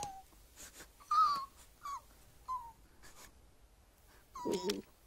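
Scrat, the animated saber-toothed squirrel, giving about four short, high squeaks and whimpers, the last one longer and fuller, with faint clicks between them.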